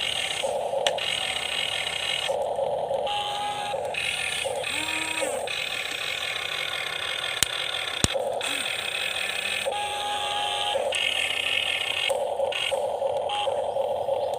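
Electric motors of radio-controlled model construction vehicles whining, starting and stopping in short bursts. Two sharp clicks about half a second apart come a little past halfway.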